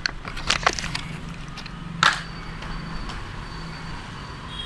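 Clicks and light rustling as a new car wiper blade is handled, with one louder scraping rush about two seconds in.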